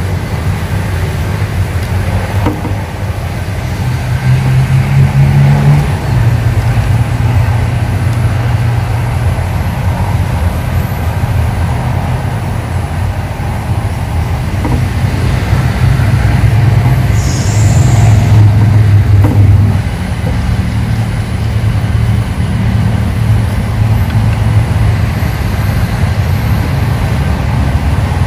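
A loud, steady low engine hum, swelling louder about four seconds in and again around seventeen seconds in.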